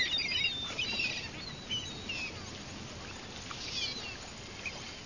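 Birds chirping, with short high calls and trills scattered through, over a steady faint hiss.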